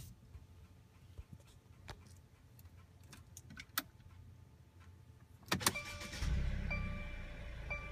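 2015 Mercedes-Benz C300 4MATIC's 2.0-litre turbocharged four-cylinder being started: a couple of sharp clicks about five and a half seconds in, then the engine cranks, catches and settles into a low idle. Once it is running, a dash chime repeats about once a second.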